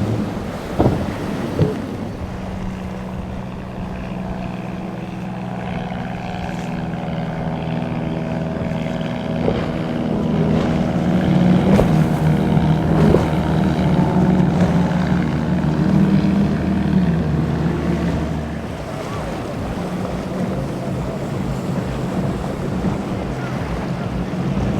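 Motorboat engines running under wind and water noise, with a few short knocks near the start. The engines get louder toward the middle, and a deeper engine tone drops away about three-quarters of the way through.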